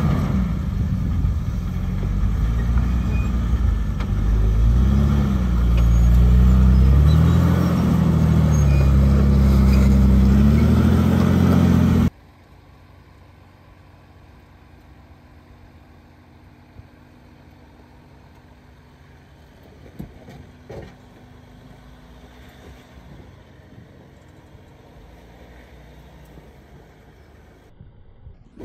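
Off-road vehicle's engine working under load, its pitch rising and falling as the throttle is worked, for about the first twelve seconds. It then cuts off abruptly to a faint steady background hum with a couple of small clicks.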